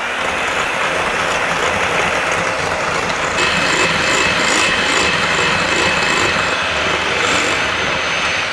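Electric hand mixer running steadily at high speed, its beaters whipping heavy cream in a glass bowl toward soft peaks. A steady high whine joins about a third of the way in.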